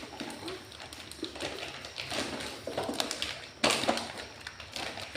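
Scattered light taps and clicks of toy packaging being handled and pulled open, with one sharper knock about three and a half seconds in.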